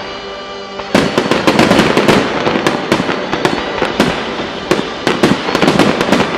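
Fireworks display: about a second in, a dense barrage of aerial shell bursts begins, with many sharp bangs and cracks in quick succession.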